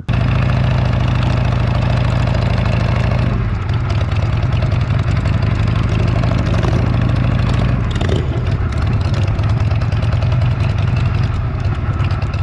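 Motorcycle engine running steadily at low speed, heard close up from the riding bike, with a slight drop in level a few seconds in.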